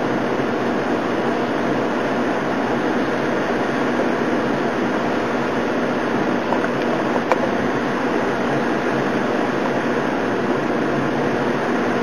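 Heavy thunderstorm downpour with high wind: a steady roar of pouring rain, with one faint brief click about seven seconds in.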